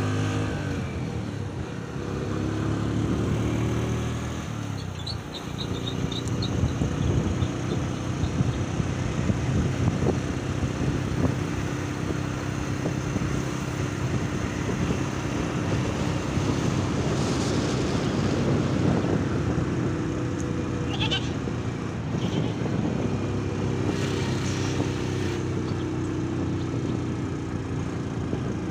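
Motorcycle engine running as the bike rides along, with wind and road noise rushing over the microphone through the middle stretch. The engine's hum is clearest at the start and again near the end. A few brief high chirps come about five seconds in and again later.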